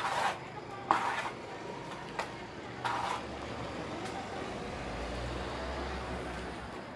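Trowel scraping and dabbing wet cement mortar onto a circular wire frame: a few short scrapes in the first three seconds over a steady background hiss. A low rumble comes in during the second half.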